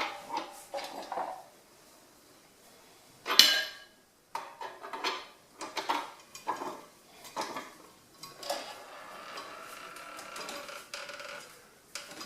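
Metal clinking and clanking as a scissor jack is cranked back up under the compressed suspension spring. There is one sharp metallic clang about three seconds in, then short irregular clinks, and a steadier rattle later on.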